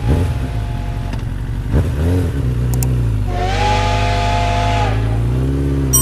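A steam-locomotive whistle with hissing steam, held for about a second and a half in the middle, over a steady low engine drone that rises in pitch near the end.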